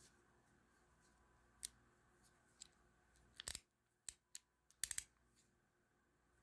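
Scattered sharp clicks and taps of a ratcheting screwdriver and its small parts being handled, irregularly spaced, with a quick run of clicks about five seconds in, over a faint steady hum.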